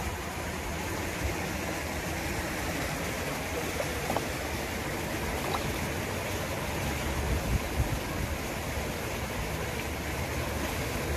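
Steady outdoor rushing noise with a deep rumble underneath, and a couple of faint ticks around the middle.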